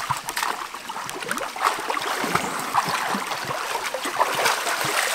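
Water splashing and sloshing, irregular and continuous, as a person wades chest-deep through a stream pool and churns the water with her arms.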